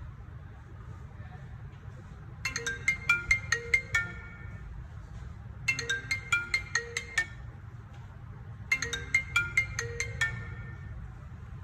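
iPhone 12 Pro Max ringtone playing through the phone's loudspeaker, showing the sound working after a repair. A quick melodic phrase of about eight clear notes is heard three times, about three seconds apart.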